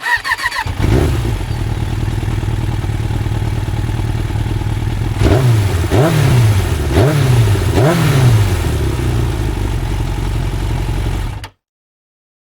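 Yamaha SZ 150 motorcycle's single-cylinder engine idling, then revved in four quick blips about a second apart, before the sound cuts off suddenly near the end.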